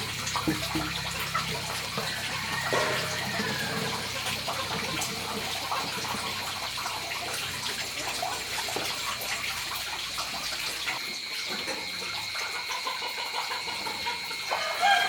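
Water running and splashing in a steady flow, with a low hum underneath that stops about eleven seconds in.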